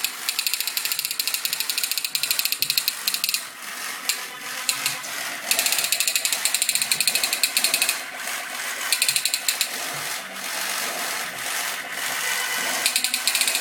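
A fast run of rattling clicks that stops and starts several times.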